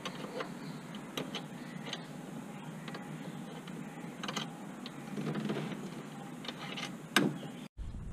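Allen key and screw being worked into a chassis-brace mount by hand, with scattered small metallic clicks and ticks of tool and fittings. The sound breaks off suddenly near the end.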